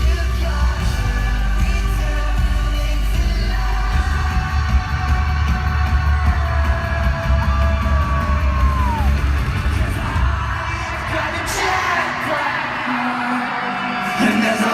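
Live pop-rock band playing with singing, heard from within the audience with heavy bass and drums. A little after ten seconds in the band's low end stops and the crowd's screaming and cheering takes over.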